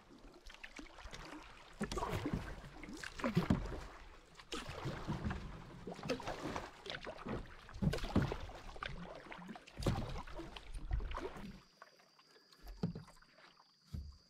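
Canoe paddle strokes swishing and splashing in the water at an uneven pace, about one every second or so. Near the end the paddling eases and a steady high-pitched insect chirring comes through, which the paddler takes for crickets.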